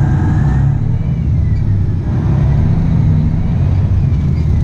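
Semi truck's diesel engine running loud inside the cab with the engine brake on, slowing the loaded truck; the engine sound dips briefly about two seconds in and then picks up again.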